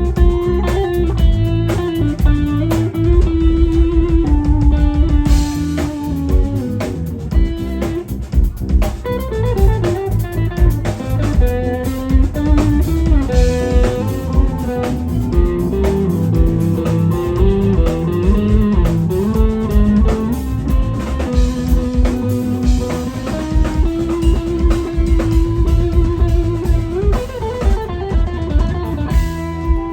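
Live band playing an instrumental stretch: electric guitar lines over bass and a drum kit keeping a steady beat.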